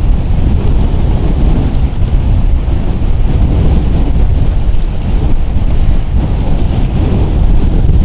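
Strong, gusting wind buffeting the microphone: a loud, steady low rumble with fluttering gusts.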